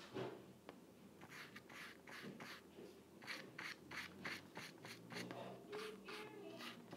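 Paintbrush scratching and dabbing on a stretched canvas in quick, faint, repeated strokes, coming several a second about halfway through.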